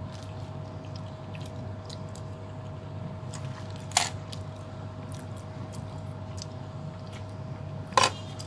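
Steady background hum with a constant tone, broken by two sharp clinks of metal cutlery about four seconds apart, the second one the loudest.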